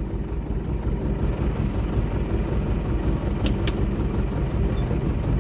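Tractor engine idling with a steady low hum, and a couple of faint clicks about three and a half seconds in.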